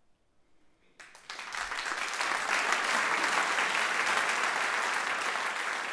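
Audience applauding: after a hush of about a second it starts suddenly, swells within a second to a dense, steady clapping and eases off slightly near the end.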